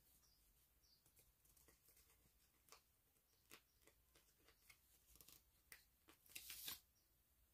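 Faint scattered ticks and taps of a paper sticker sheet and tweezers being handled, with a short papery rustle about six seconds in.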